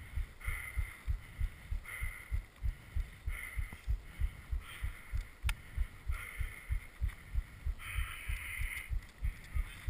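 A mountain biker panting hard after a ride, slow breaths about every second or so. Under them runs a rapid low thumping, about three beats a second.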